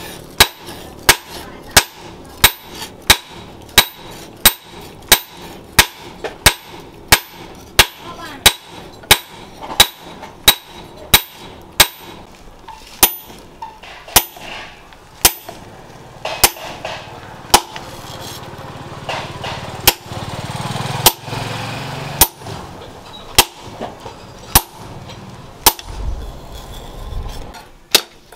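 Hand hammer striking a red-hot leaf-spring steel cleaver blade on a small steel anvil while forging it into shape: sharp, ringing metal-on-metal blows about two a second, becoming slower and irregular after about twelve seconds.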